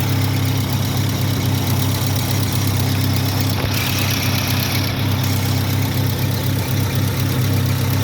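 Car engine idling steadily, with its alternator accessory belt running. The belt is dried out and noisy, which is typical of a belt that needs replacing.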